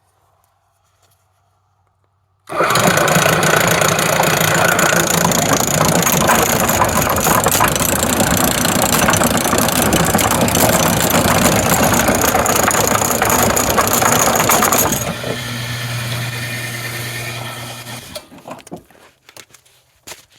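Electric-motor-driven sawdust chain conveyor starting up suddenly a couple of seconds in, its chain clattering and rattling loudly around the sprockets. After about twelve seconds it drops to a quieter run with a steady low hum, then dies away and stops near the end.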